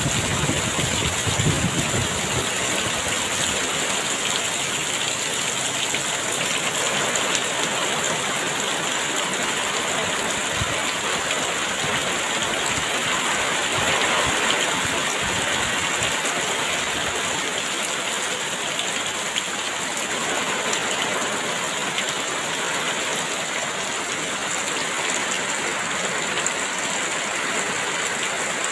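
Heavy rain falling steadily, a dense even hiss, with a low rumble that fades away in the first two seconds.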